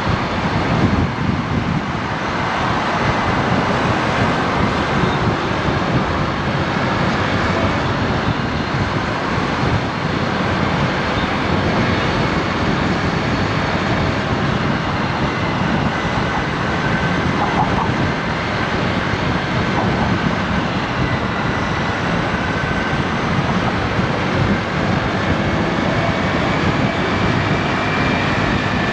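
Honda Navi scooter's small single-cylinder engine running steadily while riding, mixed with steady wind and road noise.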